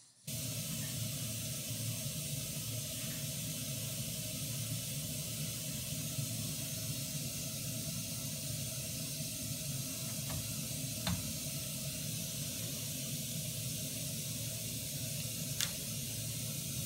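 Steady FM interstation hiss from the Braun Regie 450S receiver tuned to an empty spot on the band with no station, over a low hum, with a few faint ticks.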